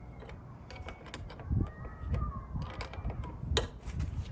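A 10mm wrench working loose a car battery terminal nut: scattered metal clicks and ticks, with a faint squeaky creak in the middle as the clamp turns on the post.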